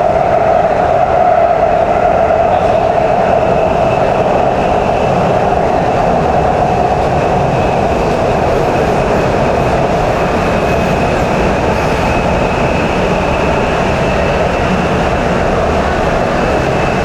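Shenzhen Metro Line 14 train running steadily along the track: a continuous rumble with a thin, steady high whine over it.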